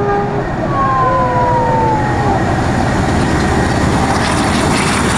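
A double-headed train, a diesel locomotive leading a steam locomotive, passing close by at speed with a loud, steady rumble. About a second in, a high tone slides slowly down in pitch.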